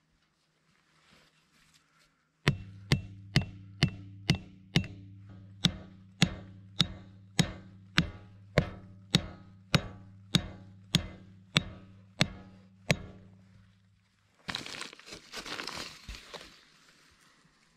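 About twenty even blows of a tool striking wood, roughly two a second, over a low steady hum, followed near the end by a couple of seconds of rustling noise.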